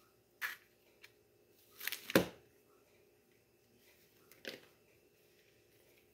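Kitchen handling noises as mozzarella slices are taken from their package and laid into a metal muffin tin: a few short rustles and a small click, with a louder knock about two seconds in.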